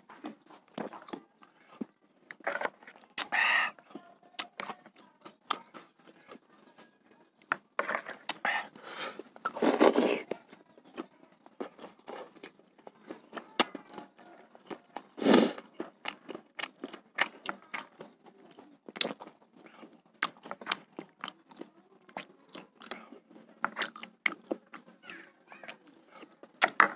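Close-miked eating sounds: a metal spoon clicking and scraping against a plastic bowl, with chewing and a few louder slurps of spicy bakso broth from the spoon.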